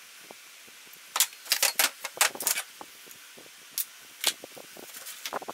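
Sharp clicks and clatter of a small steel camping hatchet and a pencil being laid down on a workbench: a quick run of taps about a second in, then two single knocks near the end.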